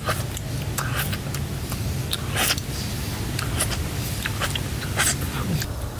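Irregular wet mouth smacks and slurps as a man sips from his cupped hands, two of them louder, about two and a half and five seconds in, over a steady low rumble.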